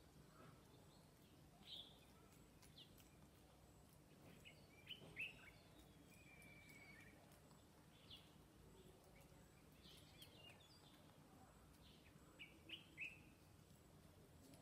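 Faint animal calls: scattered short, high chirps a second or two apart, loudest about five seconds in, with a brief trill near the middle, over a low steady hum.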